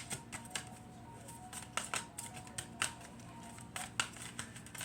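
A deck of oracle cards being shuffled by hand: irregular crisp snaps and flicks of card edges, about two or three a second.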